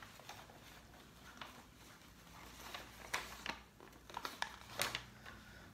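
Sheets of paper rustling and crinkling as a folded invoice is handled and opened out, in scattered crisp crackles, the loudest about three to five seconds in.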